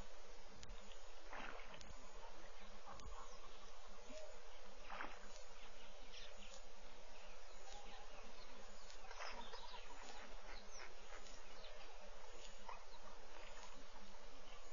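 Steady insect buzz, with short bird chirps scattered through it.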